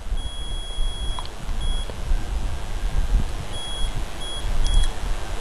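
Steady low rumble of microphone background noise, with a faint high-pitched electronic whine that cuts in and out several times.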